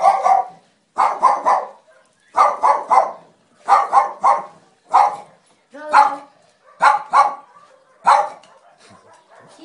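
Dog barking in short runs of one to three barks, a run about every second and a quarter, falling quiet near the end.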